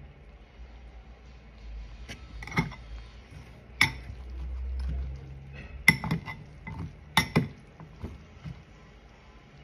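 Metal fork clinking against a glass bowl as a heap of instant noodles is stirred: about half a dozen sharp separate clinks, the loudest two around six and seven seconds in.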